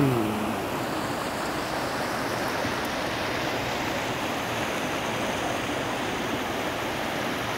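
The Bhagirathi (Ganga), a fast, shallow mountain river, rushing over stones: a steady rush of water.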